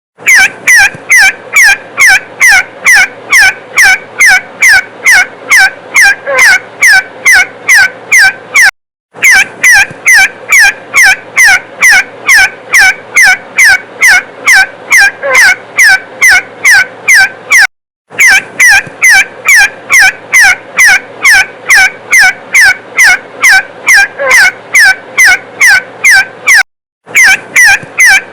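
Recorded call of the bird called sufrud: a rapid, loud series of short descending whistled notes, about three a second. The recording repeats in a loop, with short dead-silent breaks about every nine seconds.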